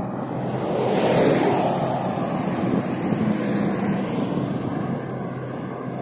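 Road traffic on the bridge's carriageway: a steady noise of tyres and engines, swelling as a car goes by about a second in.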